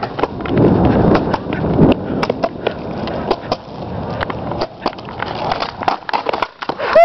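Skateboard wheels rolling over a concrete sidewalk, a rough rumble that is loudest in the first couple of seconds, with many scattered sharp clicks and clacks of the board over the pavement joints.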